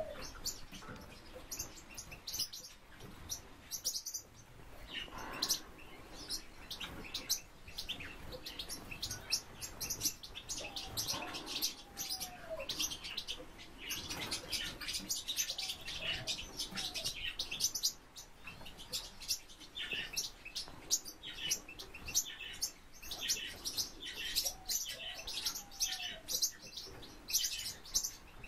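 Small birds chirping: a steady stream of short, high chirps, with a few lower rising-and-falling calls now and then.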